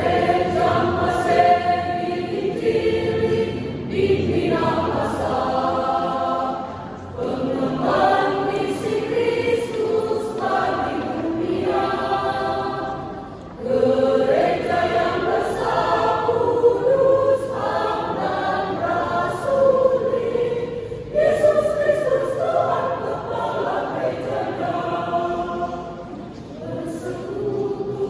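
Church choir singing a hymn in sustained phrases, with short breaks between phrases.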